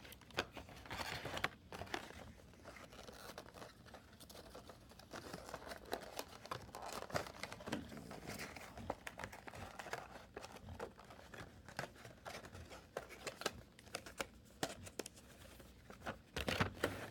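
Cardboard box and packaging being handled and closed up: crinkling and rustling with scattered clicks and taps, and a louder crinkling scrape near the end.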